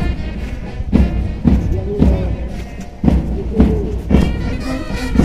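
Music with a heavy drum beat, a low thud about twice a second, under pitched instrumental lines.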